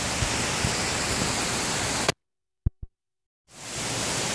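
Heavy rain pouring down as a steady hiss, which cuts out abruptly about two seconds in to dead silence with two brief clicks, then fades back in about a second later.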